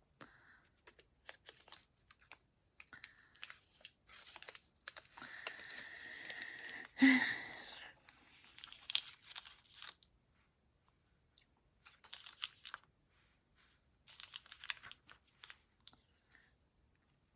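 Small paper and plastic packaging being handled: crinkling and tearing with light clicks and taps, loudest in a rustle about seven seconds in.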